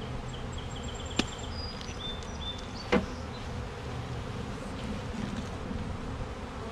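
Swarm of honeybees buzzing steadily in the air as a bee package is shaken out over a hive, with two sharp knocks about one and three seconds in.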